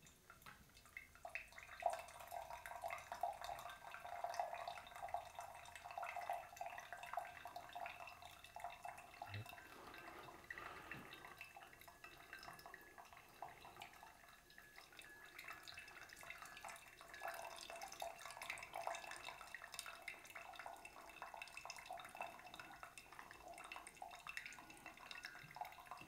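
Hot water poured in a thin stream from a gooseneck kettle onto coffee grounds in a paper-filter pour-over cone, with coffee dripping into the glass carafe below: a faint, steady trickle.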